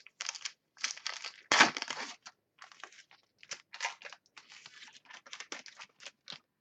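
Football trading cards being handled, rustling and crinkling in irregular bursts, with a louder scrape about a second and a half in.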